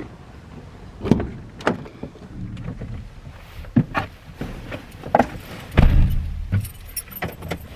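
Van door opening and a person climbing into the driver's seat: a string of clicks and knocks, then a heavy thump about six seconds in, with keys jingling near the end.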